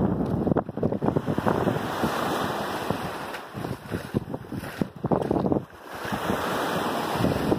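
Wind gusting across a phone's microphone, with small waves washing onto a sandy beach. The rush rises and falls unevenly, dropping away briefly about four seconds in and again about six seconds in.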